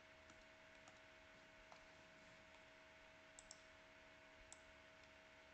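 Near silence: faint room tone with a steady low hum and a few soft clicks, a pair of them about three and a half seconds in.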